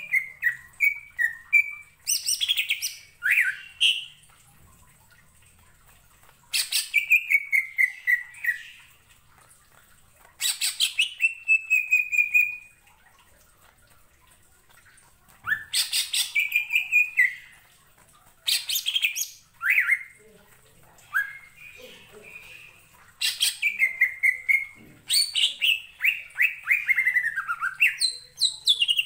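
Male cucak ijo (greater green leafbird) singing in the stuttering 'ngentrok' style: bursts of fast repeated chattering notes, a second or two long, many ending in a run of notes falling in pitch, with short pauses between bursts.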